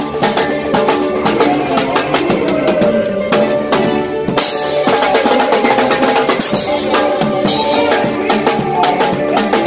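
Live Congolese rumba in its fast seben section: a drum kit playing a busy beat of snare, bass drum and cymbals over the rest of the band's pitched instruments.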